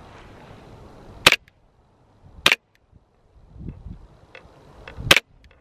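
Green-gas airsoft Glock replica firing three sharp shots: the second about a second after the first, the third about two and a half seconds after that.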